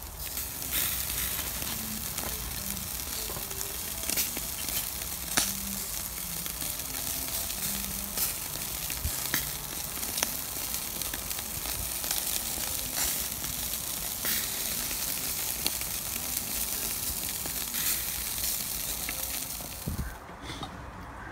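Chicken wings sizzling on a charcoal grill grate, a steady hiss with frequent sharp crackles and pops as fat spits onto the coals. The sizzling stops abruptly near the end.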